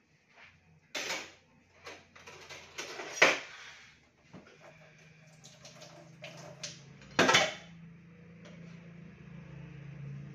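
Dishes and utensils clattering and knocking against each other and the sink as they are washed by hand, with a few sharp clanks, the loudest about three seconds in and again about seven seconds in. A low steady hum comes up in the second half.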